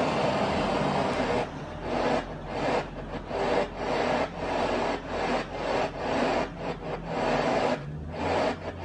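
FM radio static from a Fiat Doblo Continental VP2 head unit as it is tuned down the FM band between stations. The hiss cuts out briefly again and again as the tuner steps from one frequency to the next.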